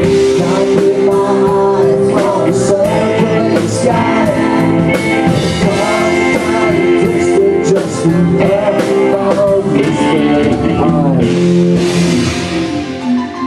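Live rock band playing, with a male lead singer over electric guitar and drums.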